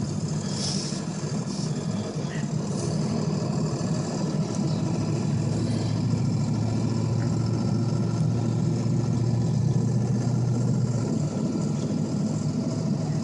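Interior drone of a Ford F-250 pickup on the move, heard from inside the cab: steady engine and road noise, with a low hum that holds steady for several seconds in the second half.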